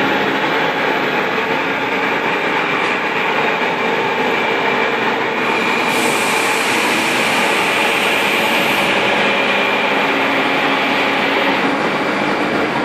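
Commuter train at an underground station platform, its loud steady running noise and hum echoing under the roof, with a higher hiss coming in about six seconds in.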